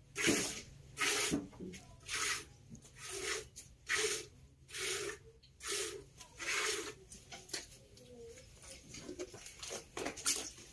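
A cow being milked by hand: rhythmic squirts of milk hissing into a plastic jug, about one to two a second, growing fainter after about seven seconds.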